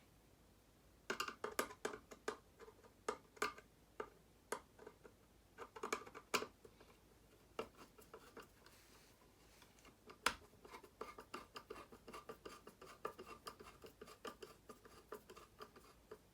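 Irregular clicks, taps and scrapes of a dimmer switch and its stiff wires being pushed and worked into an electrical box. They start about a second in and come thicker toward the end.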